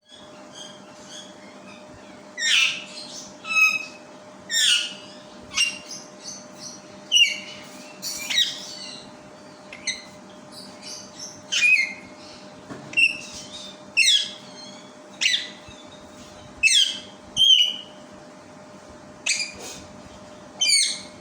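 Pet parrot screeching: loud, harsh, high-pitched calls repeated every second or two, each a short downward sweep.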